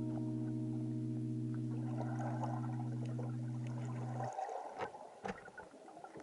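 Background music holding a sustained chord that cuts off about two-thirds of the way through, followed by faint crackling, clicks and gurgling water.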